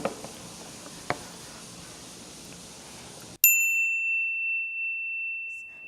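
Faint room tone with a single click about a second in. Then, about three and a half seconds in, an abrupt bright bell-like ding: a single high tone whose brief shimmer fades at once, leaving the tone ringing on steadily. It sounds like an added chime sound effect.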